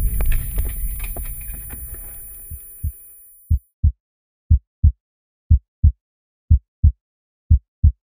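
Noise from the motocross run fades away over about three seconds. Then a heartbeat sound effect begins: low double thumps, about one pair a second, with silence between them.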